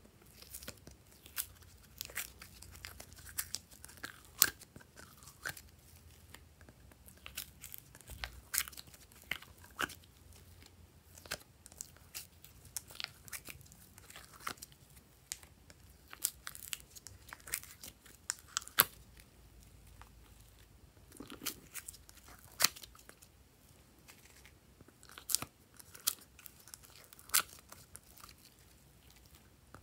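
Glossy slime being pulled out of plastic palette cells and squeezed in the hands, giving irregular sharp sticky clicks and crackling pops.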